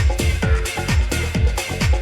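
Electronic dance music from a DJ set: a steady four-on-the-floor kick drum, about two beats a second, with hi-hats between the beats.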